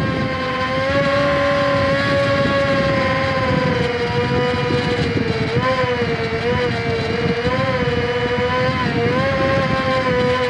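Electric motor and propeller of an Ultrix 600 RC plane heard from a camera on board. The whine comes on at the start, then holds steady with its pitch wavering up and down as the throttle changes. Wind rushes over the microphone underneath.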